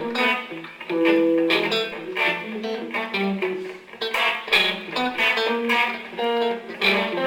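Electric guitar quartet playing new music: several electric guitars plucking many short overlapping notes at different pitches, each one ringing briefly and dying away.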